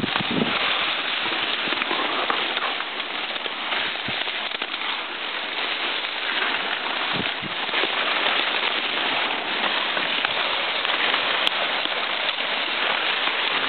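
Palmetto fronds and camouflage clothing rustling and scraping against the camera as it pushes through dense brush: a steady crackling rustle.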